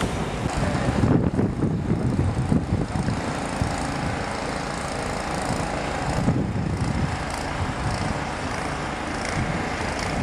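An engine running steadily, with a low, uneven rumble.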